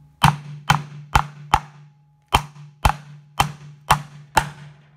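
Plastic handle of a pry bar striking a copper bushing, pressing it into the hub of a plastic lawn mower wheel. Nine sharp knocks about two a second, four, then a short pause, then five more.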